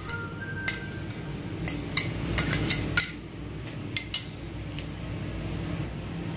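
Steel spoon clinking and scraping against a ceramic bowl as a thick nut paste is scraped out, with about eight light clinks over the first four seconds, then quieter.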